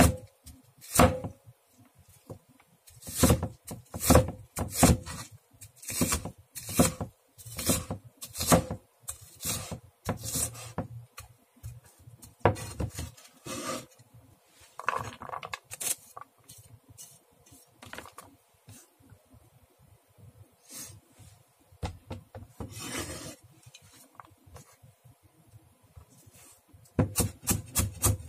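Cleaver-style knife chopping onion on an end-grain wooden board: sharp knocks about two a second at first, then scattered strokes and the blade scraping the diced onion across the board, and a fast run of chops near the end.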